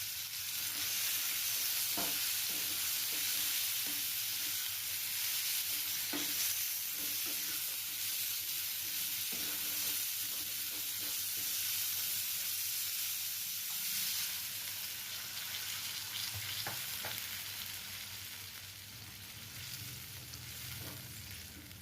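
Mango chutney cooking in a pan: a steady sizzle, with a utensil stirring and knocking against the pan a few times. The sizzle grows somewhat quieter near the end.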